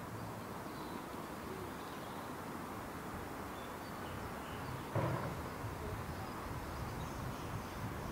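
Outdoor ambience: a steady low background rumble with faint, scattered bird chirps, and a single dull thump about five seconds in.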